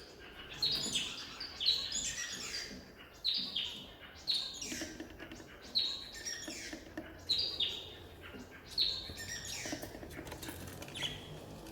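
Caged budgerigars chirping: a string of short chirps that fall in pitch, coming in quick clusters about every second.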